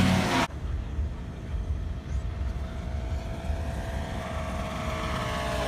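Paramotor engine and propeller droning as it flies past low overhead, the pitch dropping near the end as it goes by. A louder, closer engine sound cuts off abruptly about half a second in.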